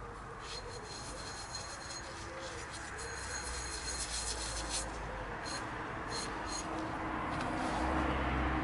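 Damp sponge rubbing over the unglazed foot of a bisque mug, wiping excess black underglaze off the stamped maker's mark. A low rumble grows louder near the end.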